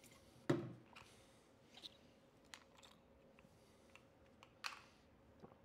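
A few quiet clicks and knocks of a plastic drink jug and small items being handled and set down on a stone kitchen counter, the loudest about half a second in.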